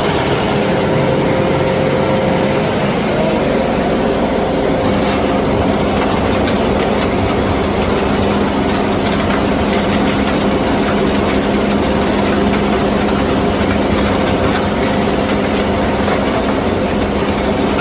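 A 60-horsepower-class LS tractor's diesel engine runs steadily. A higher clattering noise joins about five seconds in.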